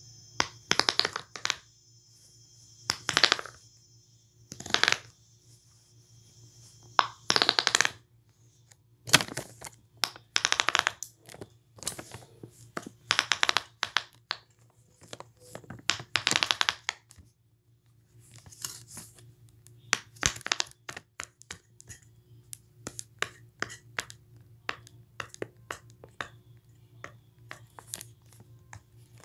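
Repeated bursts of crackling, each half a second to a second long, then a long run of small scattered clicks.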